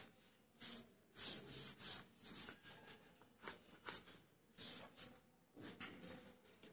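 Pencil sketching on the paper page of a drawing book: faint, irregular scratchy strokes, about a dozen short ones at uneven spacing.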